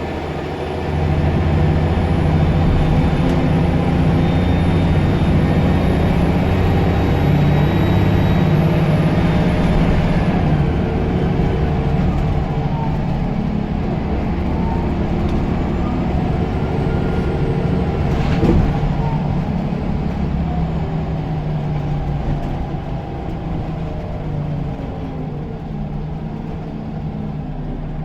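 Scania L94UB bus engine pulling hard from about a second in, with a thin, very high turbo whistle above it that drops in pitch around the middle. A single sharp knock comes about two-thirds through, and the engine then eases off.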